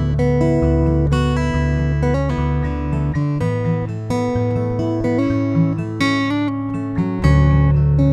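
Acoustic guitar heard through a Skysonic Pro 1 soundhole pickup, playing ringing chords over deep bass notes. A louder chord comes in about seven seconds in.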